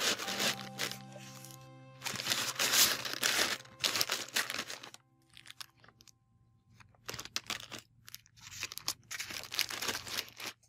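Paper and plastic packaging crinkling as wrapped items are handled and pressed into a cardboard box, in two spells with a lull in the middle.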